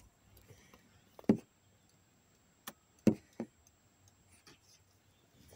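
A handful of sharp ticks and taps at irregular spacing, heard inside a vehicle cab.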